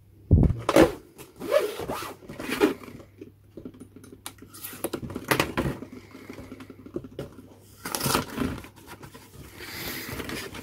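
Sealed cardboard model-kit box being opened by hand: the factory seal tearing and the card flaps scraping, in a string of irregular rips and scratches.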